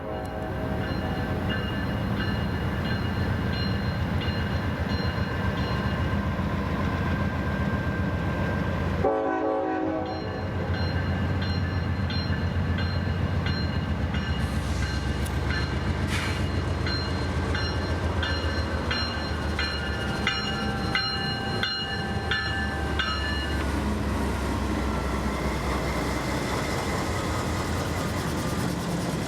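Norfolk Southern freight train passing, led by a GE C44-9W diesel locomotive: a steady deep engine rumble, with a short blast of its five-chime K5LLA horn about nine seconds in. Later the wheels click over the rail joints with high steady squeals.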